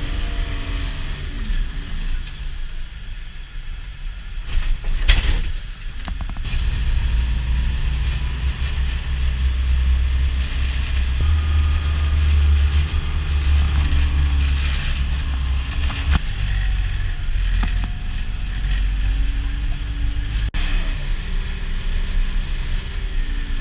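Motor vehicle driving along, its engine and road noise making a steady deep rumble that swells in the middle stretch, with a few sharp knocks about five seconds in.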